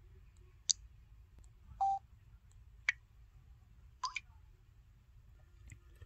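LG SU910 phone's touch-sound previews played one after another, about a second apart: a sharp click, a short xylophone note, a wood-block knock, and a quick water-drop blip that rises in pitch. A faint stylus tick on the screen comes near the end.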